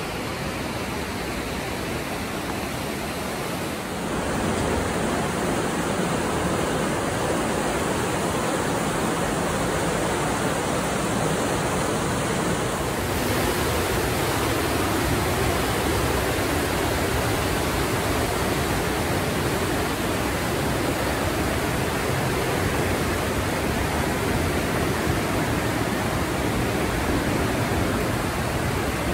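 The Partnach, a fast Alpine river, rushing through its narrow rock gorge: a steady wash of white-water noise that gets louder about four seconds in.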